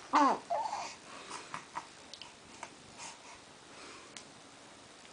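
A young infant's short squeaky vocal sounds, one with a dipping pitch at the start and a shorter one just after, followed by a few faint small noises.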